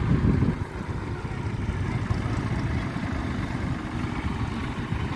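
Vintage tractor engines idling: a steady low rumble.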